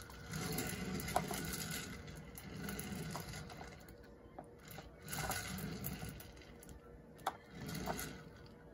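Faint handling and rustling noise, with a few small sharp clicks, over a low steady room hum.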